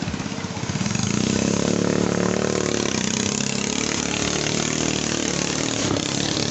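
Small single-cylinder longtail (ketinting) racing-boat engine running hard on the water, picking up and growing louder about a second in, then holding steady.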